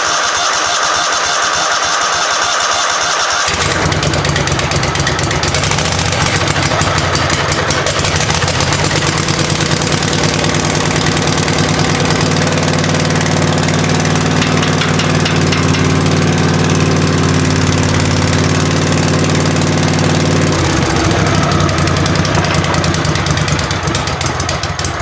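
Toro lawn tractor restarted after stalling: the starter cranks it for about three and a half seconds, then the engine catches and runs steadily. About twenty seconds in its note changes, and the sound dies down near the end.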